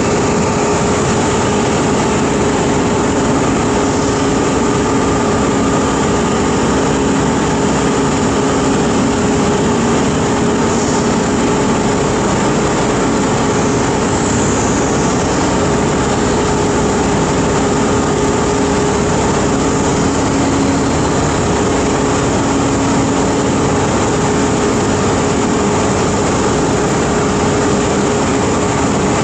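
Steady, loud drone of workshop machinery, with a constant hum over a wide rushing noise.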